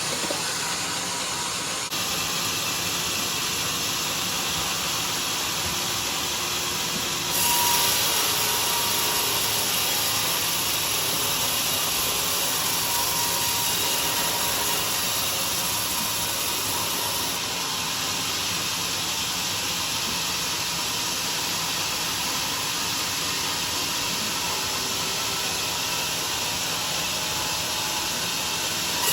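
Homemade sawmill running and sawing through a durian log, a steady, loud, hissing saw noise. It grows louder and brighter about a quarter of the way in and eases back slightly a little past halfway, as the cut goes on.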